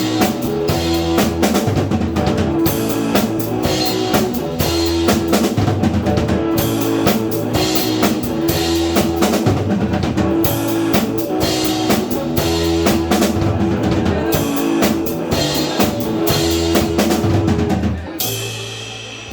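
Live band playing an instrumental number driven by a drum kit, with kick, snare and rimshots over a bass line and sustained held notes. The band stops about 18 seconds in and the last sound rings out.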